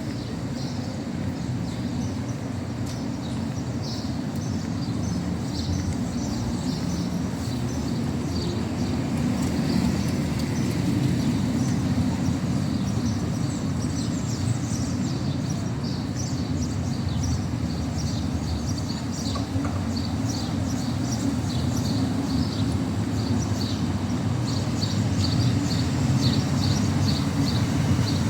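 City street ambience: a steady low rumble of traffic, with many short high chirps over it.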